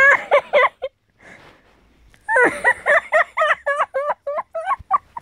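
A person laughing hard and high-pitched: a short burst at the start, then after a pause a long run of quick breathy "ha" pulses, about four a second, getting weaker toward the end.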